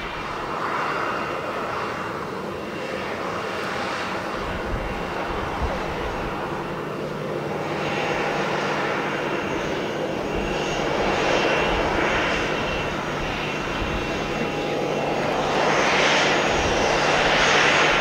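Boeing 737-800's twin CFM56-7B turbofan engines at low taxi thrust as the airliner taxis after landing. A steady jet rush with a thin whine, swelling in waves and loudest near the end as the aircraft comes closer.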